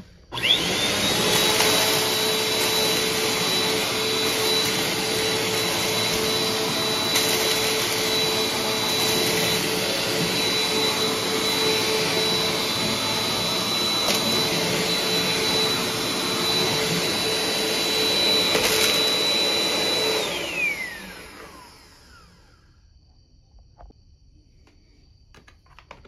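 BISSELL CleanView Compact upright vacuum switched on, its motor whining up to speed within a second, then running steadily with a high whine as it sucks up scattered dry cereal from a hardwood floor. About twenty seconds in it is switched off and winds down with a falling whine.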